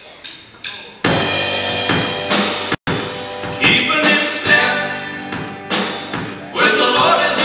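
A few sharp clicks of a count-in, then a gospel band with electric guitars, drum kit and keyboard starts playing about a second in. The sound cuts out for an instant near three seconds, a dropout in the old VHS tape. Male voices start singing about halfway.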